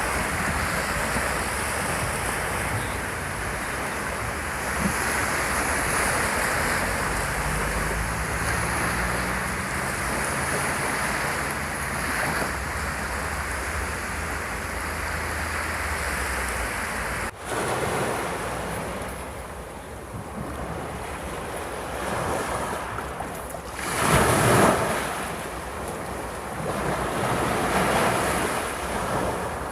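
Ocean waves breaking on a sandy beach and washing up the shore in a steady roar of surf, with a brief sudden dip about 17 seconds in and a louder breaking wave about 24 seconds in.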